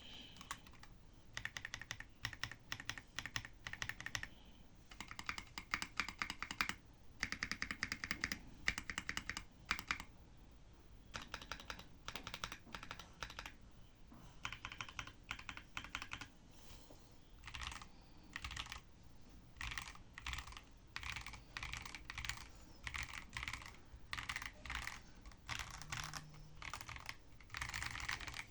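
Monsgeek ICE75 mechanical keyboard with Akko Crystal linear switches on stock PCB-mount stabilizers being typed on in runs of fast keystrokes broken by short pauses. The overall sound is slightly clacky.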